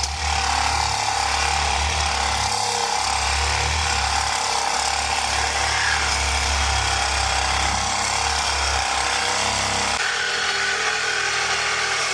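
Loud, steady mechanical noise, like boiler-room machinery or a power tool at work, with a pulsing low rumble that drops away about ten seconds in.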